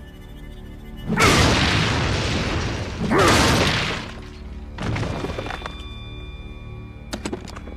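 Action sound effects over background score: two loud booms about two seconds apart, a weaker one a little later, and a quick run of sharp clicks near the end.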